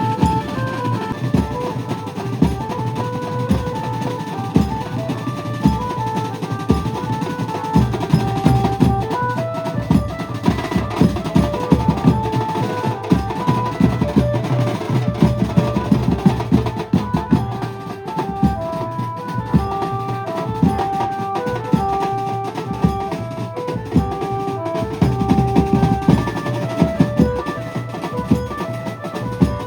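A Maharashtrian banjo band playing loudly. A lively melody on the amplified banjo, a keyed string instrument, runs over fast, dense drumming.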